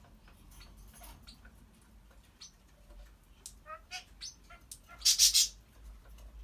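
Congo African grey parrot making soft clicks and small chirping sounds, with a short run of chirps about four seconds in, then a loud, harsh half-second burst about five seconds in.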